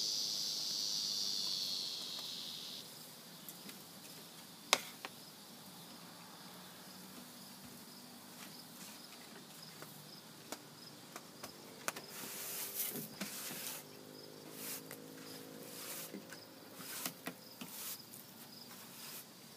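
Insects in the yard: a loud, steady high buzz that cuts off about three seconds in, then a faint, evenly pulsing high trill that continues throughout. A sharp click comes near five seconds, and scattered faint rustles follow in the second half.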